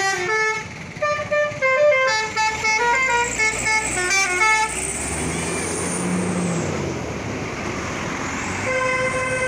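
Basuri telolet bus horn playing a quick melody of stepping notes. It gives way to a few seconds of broad rushing noise, then sounds a steady held chord near the end.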